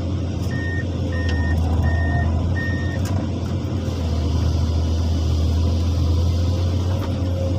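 Excavator's diesel engine running steadily under load as the arm and bucket dig, with four short high warning beeps, evenly spaced, in the first three seconds.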